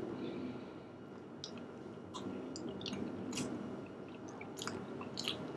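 A person quietly chewing a mouthful of soft ginger pudding from a ration pouch, with small wet mouth clicks scattered throughout.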